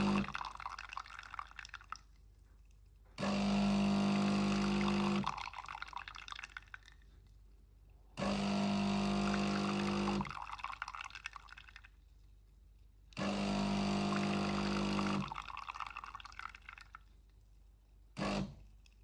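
DeLonghi Magnifica espresso machine's pump humming in bursts of about two seconds, roughly every five seconds, with a short final burst near the end. Coffee trickles and drips into the mug between bursts.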